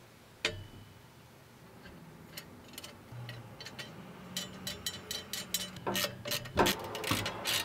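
Sharp metallic clicks and clinks as a turbo oil drain tube and its fitting are worked into place under the turbocharger by hand. There is one click about half a second in, then scattered clicks from about two seconds on that come thicker and faster near the end.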